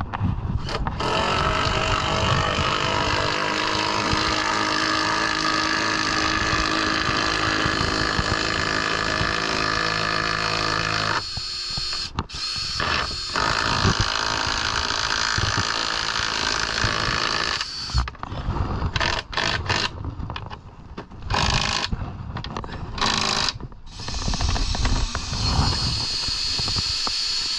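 Cordless DeWalt drill motor whining in long steady runs, with brief stops. In the second half it comes in short stop-start bursts of the trigger before another steady run near the end.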